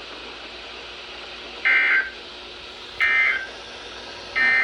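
NOAA Weather Radio EAS/SAME end-of-message data bursts: three short two-tone digital bursts about a second and a half apart, marking the end of the severe thunderstorm warning. A steady faint hiss from the radio lies between them.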